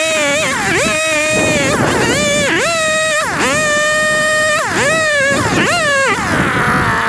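Husqvarna two-stroke chainsaw revving repeatedly: the engine pitch drops as the throttle is eased off and then climbs back to a held high note, six or seven times in a row.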